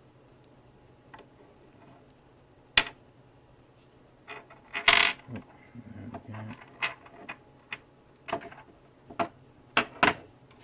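Small chrome-vanadium 1/4-inch drive sockets clinking as they are handled against each other and their retaining rail: scattered sharp metallic clicks, the loudest about five seconds in and two close together near the end.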